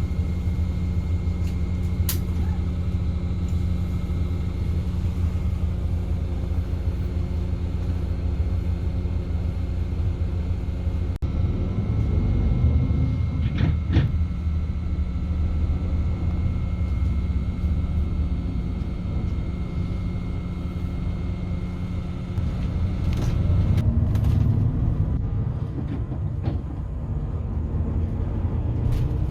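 Steady low rumble of a moving vehicle heard from inside, with a faint steady high whine over it and a brief break about eleven seconds in.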